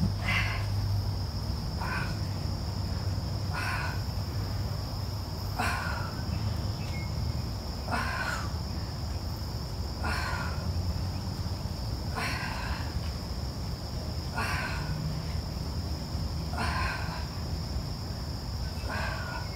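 Steady high-pitched insect chorus over a low hum, with a short sound repeating about every two seconds.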